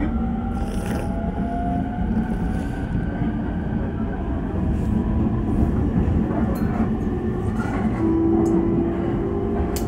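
Running sound of a JR East E231 series 1000 commuter train, heard on board: a steady rumble of wheels on the rails. A thin motor whine rises slowly in pitch over the first couple of seconds, and a lower whine comes in about eight seconds in.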